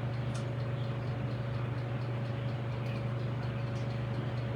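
A steady low hum with a faint higher tone above it, and a few faint ticks.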